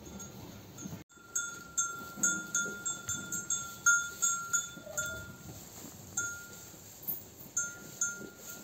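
A livestock bell clinking in quick, irregular strokes of one ringing pitch, about three a second, for the first half. After that it gives only a few scattered strokes.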